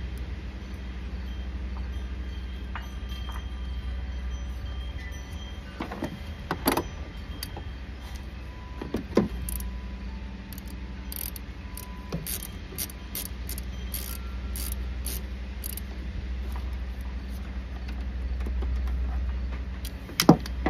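Small metal clicks and clinks as a socket ratchet tightens a nut on the negative wire's terminal at the truck battery, with a run of short ratchet ticks midway. Underneath is a steady low rumble.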